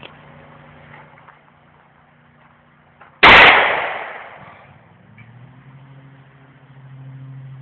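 A single gunshot about three seconds in, very loud, its echo trailing off over about a second and a half. A low steady hum runs underneath.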